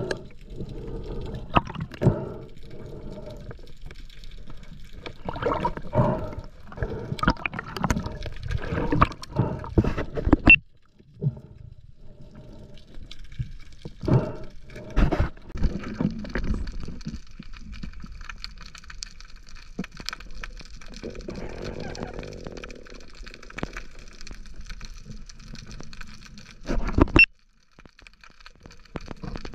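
Sea water sloshing and gurgling in uneven bursts, cutting off sharply twice.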